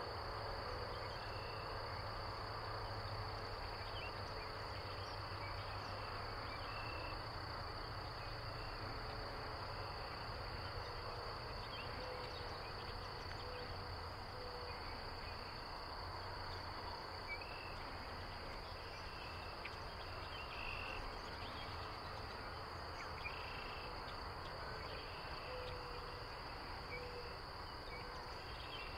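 Outdoor wetland ambience: a steady high insect trill throughout, with short bird chirps scattered over it and a few soft low calls now and then.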